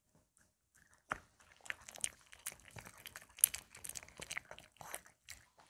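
Maltese dog chewing food, a quick run of small crunches and mouth clicks starting about a second in.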